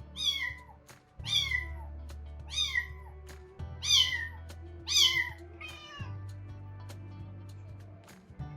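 A young kitten meowing repeatedly: about six short, high-pitched cries, each falling in pitch, roughly one a second, over background music.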